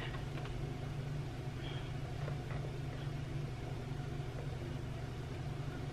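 Washing machine running: a steady low hum.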